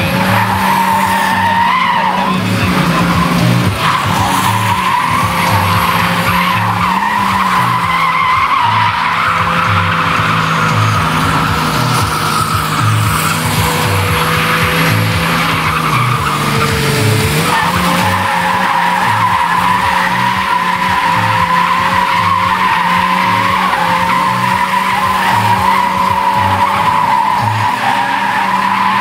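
Car drifting on asphalt with its stability control off: the tyres squeal in a long, wavering screech over the engine running hard, the pitch dipping briefly a little past halfway.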